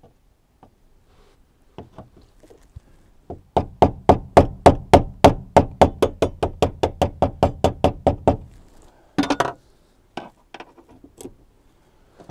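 A mallet striking the handle of a screwdriver set against the fuel pump's locking ring, knocking the ring round to undo it without the special tool. A few light taps lead into a quick even run of strikes, about five a second for some five seconds, followed by a brief clatter.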